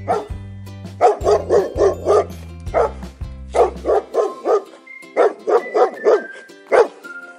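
A dog barking in quick runs of five or six barks, with a few single barks between, over light background music.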